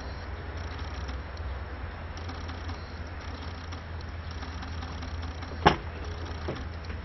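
Steady low outdoor rumble with a faint haze over it. A single sharp click comes about three-quarters of the way through, followed by a fainter one.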